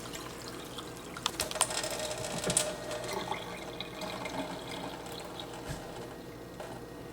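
Water running from an opened tap to bleed the pressure off a shut-off water heater supply, with a few sharp clicks in the first three seconds.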